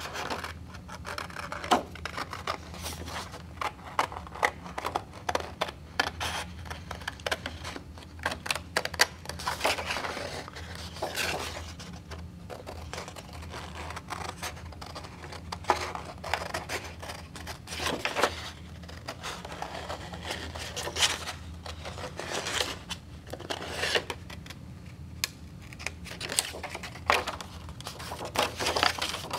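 Scissors cutting through cardstock paper: an irregular run of short snips and crunches as the blades close through the card.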